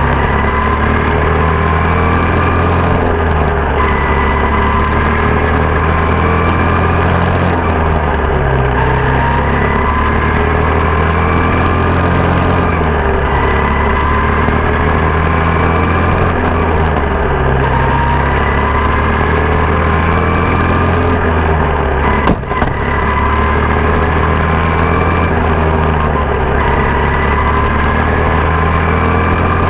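Quarter midget race car's small single-cylinder engine running at speed, heard on board. The pitch climbs every three to four seconds on each straight and drops back into each turn. There is one sharp knock about two-thirds of the way through.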